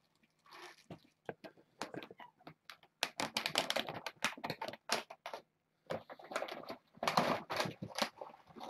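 Dry cat kibble rattling, a patter of rapid small clicks that starts scattered and comes in two dense runs, about three seconds in and again near the end.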